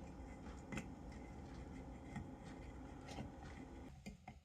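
Faint scraping and a few small metal clicks of a screwdriver prying at a locking washer on a blower motor shaft.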